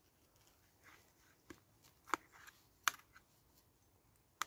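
Knife and fork clinking and scraping against a metal dish while cutting food: a few sharp, scattered clinks, the loudest about two and three seconds in and another just at the end.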